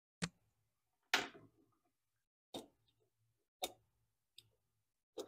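Sharp clicks and knocks of hand tools, a dial caliper and a marker, being handled and set down on a wooden workbench and against an aluminium block. There are about six knocks roughly a second apart, and the one about a second in is the loudest.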